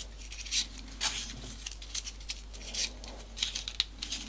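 Folded paper pieces of a modular 3D origami model being slotted onto the model by hand: irregular soft paper rustles and light clicks.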